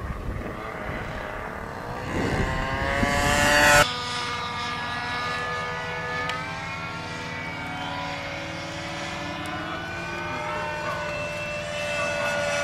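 Radio-controlled Diabolo model airplane's engine running in flight. Its pitch and loudness climb until an abrupt break about four seconds in. After that the note is steady, its pitch sways slowly, and it rises and grows louder near the end as the plane comes closer.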